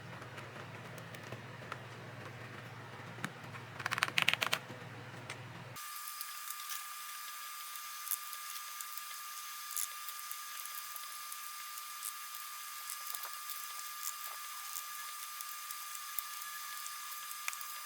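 Scattered light clicks and taps of keyboard parts being handled, with a quick run of clicks about four seconds in. About six seconds in the background changes abruptly from a low hum to a steady high-pitched whine over hiss, with more sparse clicks.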